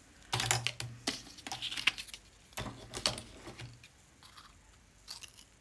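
Scissors cutting stiff cardboard, with crisp snipping and crunching in three short bursts.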